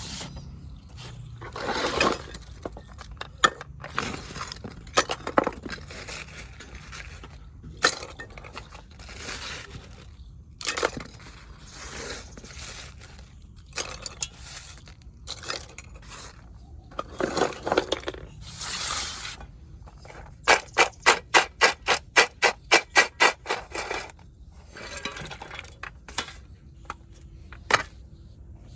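Fired clay kulhad cups being broken and crumbled, with crunching and scraping of the clay pieces. About two-thirds of the way through comes a quick even run of about fifteen sharp crunches, some four or five a second.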